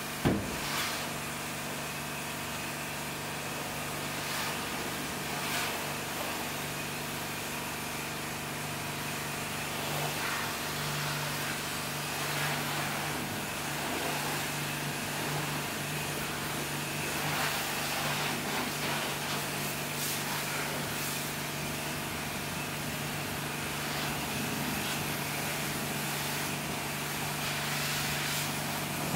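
Pressure washer running with a steady motor hum while its high-pressure water jet hisses against a car's body, the spray swelling and fading as it moves; a sharp knock just after the start.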